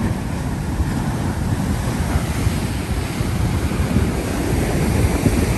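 Ocean surf breaking and washing up the sand, with wind rumbling on the microphone.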